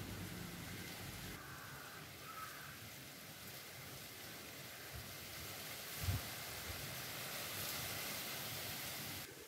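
Thick gravy sizzling and bubbling in a miniature aluminium pan over a small stick fire, a steady hiss, with a soft thump about six seconds in.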